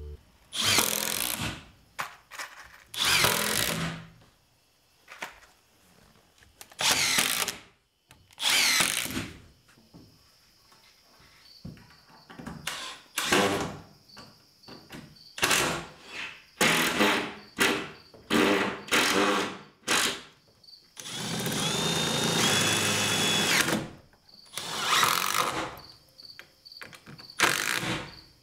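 Cordless drill-driver driving screws in a string of short runs of about a second each, with one longer run of about three seconds near the end that carries a steady motor whine. The screws are going in to fasten temporary hinges on a plywood shop door.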